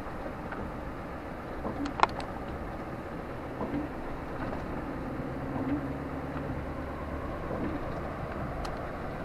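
Steady urban traffic noise, vehicles passing on a city street, with one sharp click about two seconds in.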